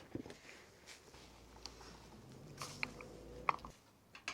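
Faint, scattered small clicks and light knocks of hands working on motorcycle parts, with a couple of sharper clicks near the end.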